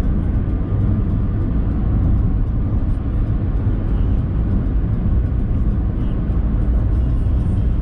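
Steady, loud low rumble of a moving vehicle, with even noise above it and no break.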